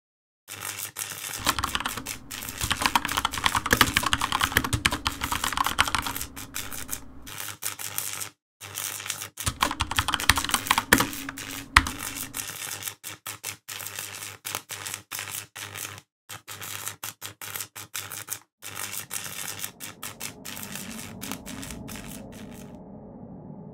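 Rapid computer keyboard typing, clattering in runs broken by short pauses. Near the end the typing stops and a low steady hum comes in.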